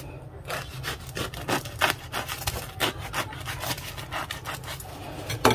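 Knife sawing through the crust of a round bread roll: a quick, uneven series of short rasping strokes, with one louder stroke near the end.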